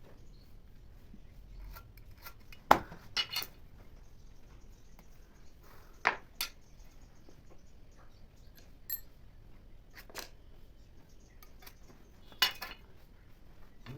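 Scattered sharp knocks and clinks of hand tools being handled and set down at a woodworking bench, about eight separate strikes, some in quick pairs, the loudest about three seconds in.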